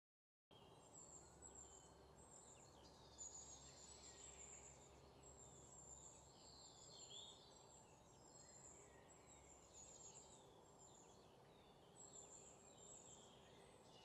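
Faint birdsong: many short chirps and calls over a low, steady outdoor hiss.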